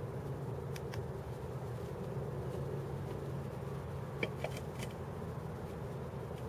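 Steady low hum of distant city and freeway traffic, raised to a noisy background by the camera's automatic gain control, with a few faint sharp ticks about a second in and again around four seconds in.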